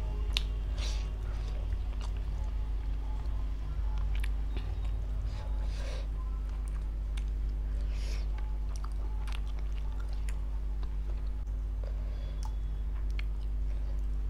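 Close-miked chewing and mouth smacks as a person eats chicken in butter masala gravy with her fingers: scattered short clicks and smacks over a steady low hum.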